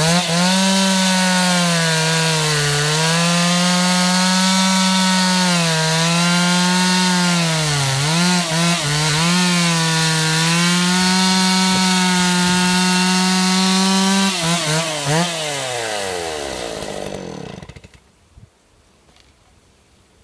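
Stihl 028 AV two-stroke chainsaw with a 50 cm bar cutting into a log at full throttle, its pitch sagging several times as the chain takes load. About fourteen seconds in the throttle is released with a few blips, and the engine winds down and stops a few seconds later.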